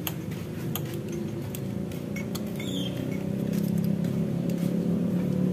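Light metal clicks and taps as a piston is worked off its connecting rod by hand and with a small pick. Under them runs the steady low rumble of a running vehicle engine, which grows louder toward the end.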